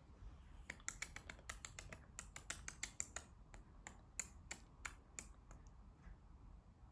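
Long-haired tabby cat grooming itself: a faint, quick series of small clicks from its tongue licking its fur, about five a second, stopping shortly before the end.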